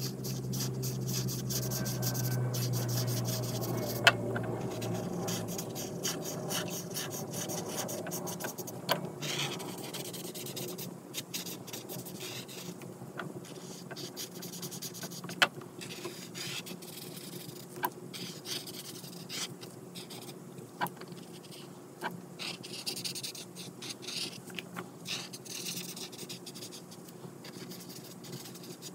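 Ohuhu brush-tip marker rubbing on coloring-book paper in quick back-and-forth strokes, a continuous scratchy rasp broken by a few sharp ticks of the nib against the page.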